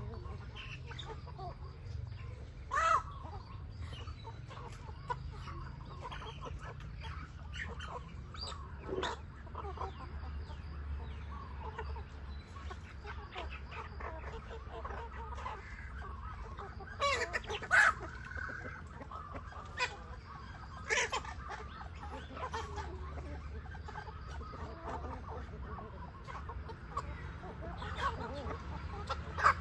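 Chickens clucking on and off, with a few louder, sharper calls about three seconds in, around the middle and near the end, over a steady low hum.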